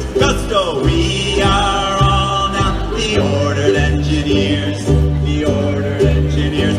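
Live acoustic band music: an upright bass plucking low notes under a strummed string instrument, with singing.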